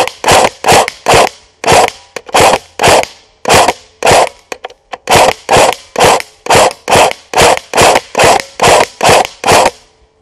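ASG Steyr AUG A1 airsoft rifle firing single shots in quick succession, about two dozen at two to three a second, with a brief pause about four and a half seconds in. The firing stops shortly before the end.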